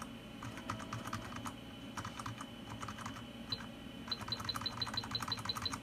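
Computer keyboard keys pressed over and over, a key being tapped repeatedly during the boot-up self-test. Near the end, a run of about ten short high beeps, about six a second, from the computer, answering the key presses.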